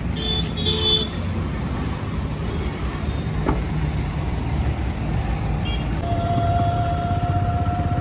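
Steady rumble of car engines and traffic around a car. Two short horn toots come about half a second in, and a long, steady horn-like tone starts about six seconds in and runs on.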